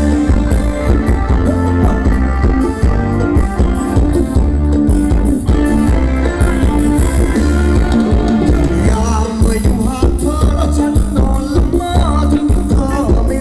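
Loud live Thai luk thung band music through a PA, with a heavy bass and a steady beat. A singing voice comes in about nine seconds in.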